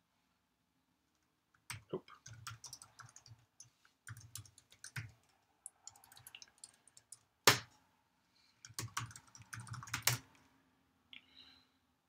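Typing on a computer keyboard: bursts of key clicks with short pauses, starting after a moment of quiet, with one much louder keystroke about halfway through.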